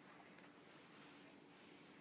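Near silence: faint room tone with a steady low hum, and a faint soft rustle about half a second in.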